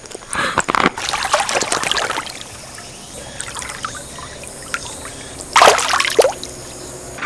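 Pool water splashing and sloshing as a swimmer in inflatable armbands paddles along: busy splashing at first, then softer lapping, with a louder short burst about five and a half seconds in.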